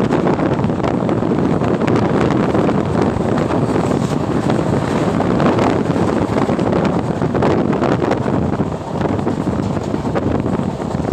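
Steady, loud rushing noise with no distinct tones, and faint ticks and crackles scattered through it.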